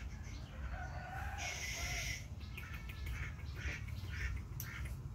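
Background fowl and bird calls: a short gliding call about a second in, a brief high squawk, then a run of short chirps, over a steady low rumble.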